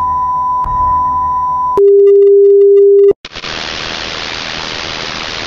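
Electronic sound design: a steady pure tone near 1 kHz with a faint click, switching about two seconds in to a louder, lower pure tone that lasts about a second. After a brief gap it gives way to a steady hiss of noise.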